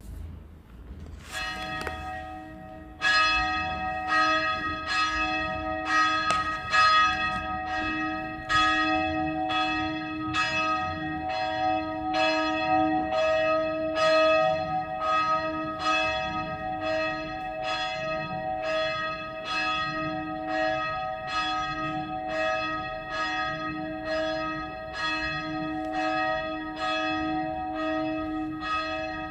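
Church bells ringing: a single stroke about a second in, then from about three seconds a steady peal of quick, evenly spaced strokes over a long sustained hum.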